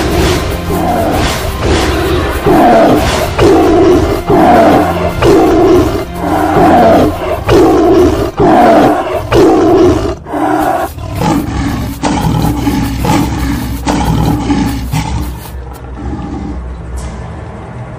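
Lion roar sound effect repeated in a run of loud roars about one a second, weakening and becoming irregular after about ten seconds, over background music.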